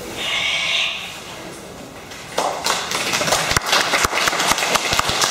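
Hand clapping from the onlookers, starting suddenly about two and a half seconds in as a dense run of sharp claps that keeps going.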